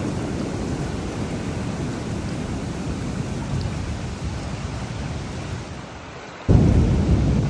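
Thunderstorm: rolling thunder with steady rain, the rumble slowly dying away, then a new, louder rumble of thunder breaking in suddenly near the end.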